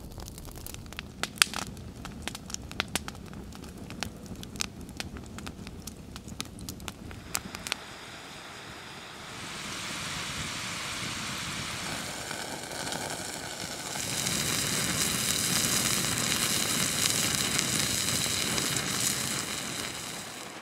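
Wood fire crackling with scattered sharp pops, then, after about eight seconds, a steady sizzle of potato fries deep-frying in oil in a pan over the fire, growing louder a little past halfway.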